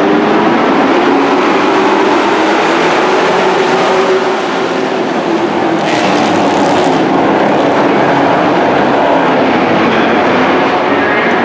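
A pack of dirt-track race trucks' engines running together in one loud, steady din as the field takes the green-flag start, with a short burst of hiss about six seconds in.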